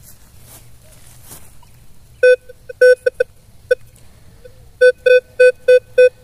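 Metal detector beeping over a target: a few scattered beeps at one pitch about two seconds in, then a steady run of about three to four beeps a second near the end. The target has come out of the hole with the dug soil.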